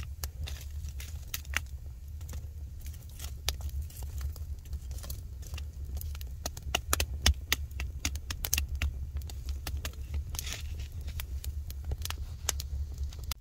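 Wood fire crackling in a stone fireplace: irregular sharp snaps and pops, thickest around the middle, over a steady low rumble.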